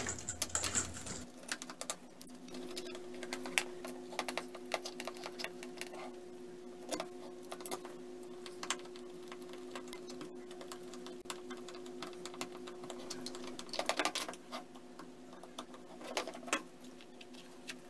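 Light plastic clicks, taps and scrapes of a Fluke 88V multimeter's case being fitted back together by hand and its back cover screwed down, with a cluster of louder clicks about three-quarters of the way in. A faint steady hum sits underneath for much of it.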